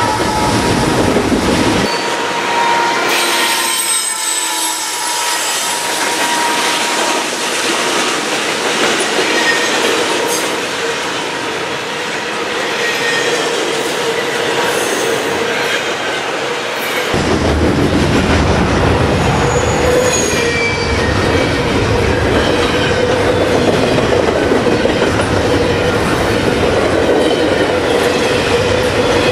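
Double-stack intermodal well cars rolling steadily past: steel wheels on rail with several thin squealing tones at different pitches and a clickety-clack over the rail joints. A steady squeal at one pitch holds through the second half.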